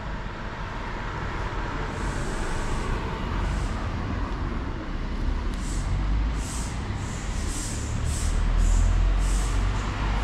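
Cat coughing: a run of short, hissing wheezes, about two a second, starting about halfway through. A low rumble of road traffic runs underneath.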